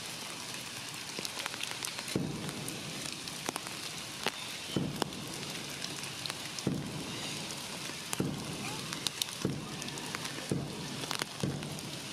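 Rain falling through forest foliage: a steady hiss with scattered drops ticking on leaves, and heavier drops landing close by in dull thuds every second or two.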